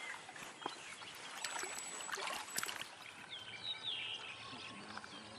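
Quiet open-air ambience with scattered sharp clicks in the first few seconds, a thin high whistle-like tone near two seconds, and a short burst of squeaky, bending bird calls about four seconds in.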